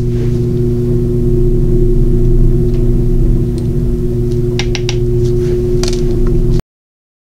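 A steady low mechanical hum with a few constant tones, like a motor or fan running. About four and a half seconds in, and again near six seconds, come a few light clicks as the small powder jar and spatula tap against the resin cup. The sound then cuts off abruptly.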